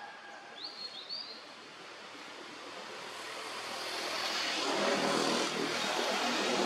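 A broad rushing noise that swells gradually over several seconds and is loudest near the end, with two short rising bird chirps about a second in.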